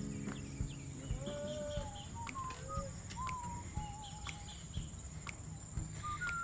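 Farm animals calling: a series of short, scattered calls, some gliding up or down in pitch, over a steady high whine.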